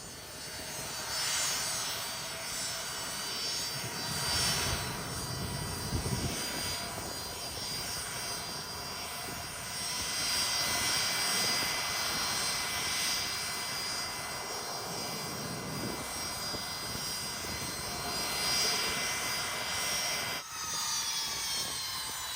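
Private jet's turbine engines running on the ground, a steady whine of several high tones over a rushing noise, with a brief deeper rumble about five seconds in. Near the end the tones begin to glide down in pitch.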